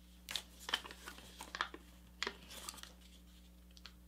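Sheet of paper being folded and creased by hand: a run of short crinkles and rustles through the first three seconds, then mostly quiet.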